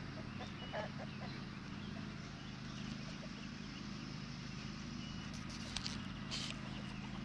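Chickens clucking a few times about a second in, over a steady low hum. A few sharp clicks sound near the end.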